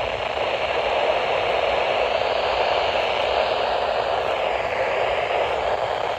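Steady radio static: a continuous hiss from a radio receiver, with no voice coming through.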